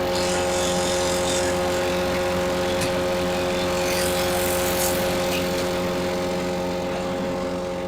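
Petrol engine of a Lumag Rambo HC10 wood chipper running steadily at constant speed, with a few short noisier stretches over the top as branches go through the chipper.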